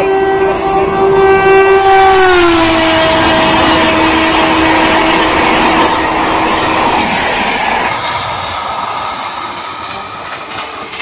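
An Indian Railways passenger train hauled by an electric locomotive passes while its horn is held for about seven seconds. The horn drops in pitch about two seconds in. Under it, the rumble and clatter of the coaches on the rails is loudest near the start and fades toward the end.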